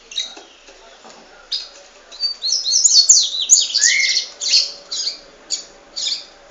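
Pet birds calling: short, sharp high-pitched chirps and squawks that crowd into a rapid run of calls in the middle, then come singly about twice a second.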